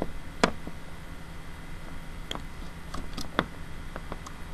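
Half a dozen scattered sharp clicks from a computer keyboard and mouse, the loudest about half a second in, over a steady low background hum.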